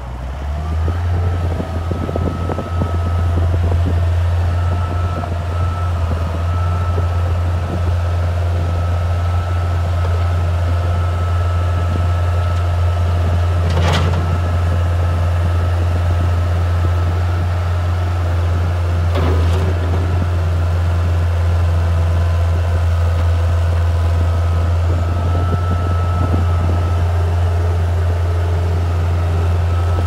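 Bobcat 743 skid steer loader's engine running steadily with a low drone and a faint high whine above it, growing louder over the first few seconds as it drives about. Two short knocks break in, about halfway through and again some five seconds later.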